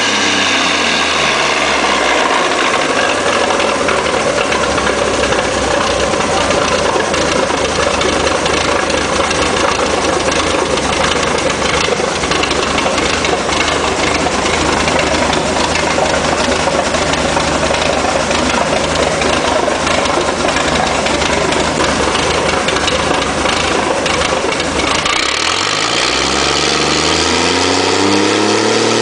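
Hino K13C turbocharged inline six-cylinder engine, converted from diesel to run on CNG with spark ignition, dropping back from higher revs to idle in the first second or so. It idles steadily, then revs rise again about 25 seconds in.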